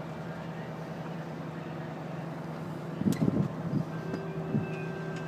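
Steady mechanical hum of a fire department aerial ladder truck's hydraulic drive as the 102-foot ladder moves. There are a few low bumps and a click about three seconds in, and a thin whine joins about four seconds in.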